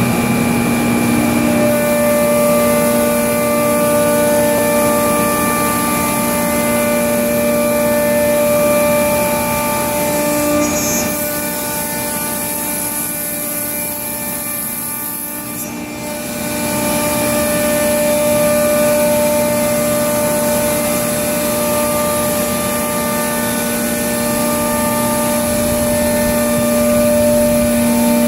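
MultiCam 3000 Series CNC router running a job: its 10 HP spindle gives a steady whine over a hiss, with the gantry traversing the sheet. The sound dips briefly about halfway through, then returns to full level.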